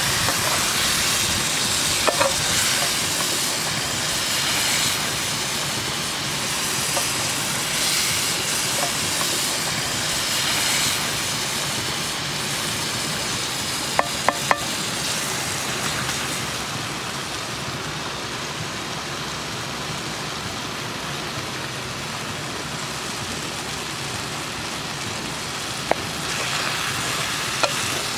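A thick buffalo goulash sizzles in a metal pot over an open fire while a wooden spoon stirs through it. A few sharp clicks stand out, two in quick succession about halfway through.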